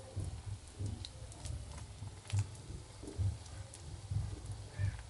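Steel spoon clicking and scraping against an iron kadhai while pakoras are turned in hot oil, over a faint frying sizzle. Irregular dull low knocks run underneath.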